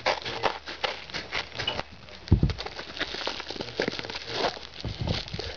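Crumpled brown paper wrapping crinkling and rustling as it is snipped with scissors and pulled open by hand, with two dull thumps, about two seconds and five seconds in.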